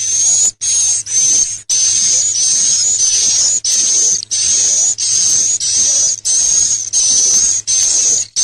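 The call of an akau, the animal whose call is named in the title: a loud hissing whistle repeated in pulses of about half a second to a second, with short breaks between them.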